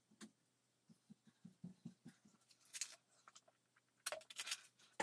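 Faint scattered light taps and scuffing from off-camera handling, sped up, with a few brief hissy rustles near the end.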